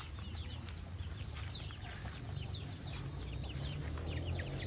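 Many birds chirping together: a dense, continuous chatter of short, high, downward-sliding chirps that gets busier toward the end, over a low steady rumble.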